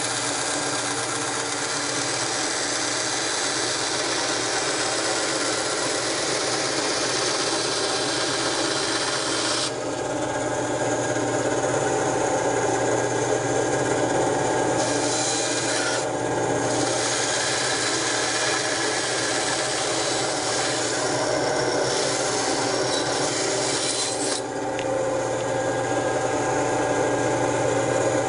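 Harbor Freight 9-inch benchtop bandsaw running, its blade cutting through a taped stack of fifteen Kydex sheets with a steady rasping over the hum of the motor. The high rasping eases and picks up again several times as the stack is fed through the cut.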